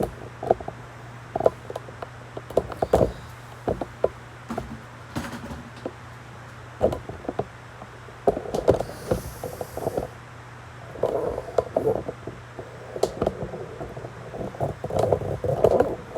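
Irregular clicks, taps and knocks of hands handling gear, with bunches of clatter about two-thirds of the way through and near the end, over a steady low hum.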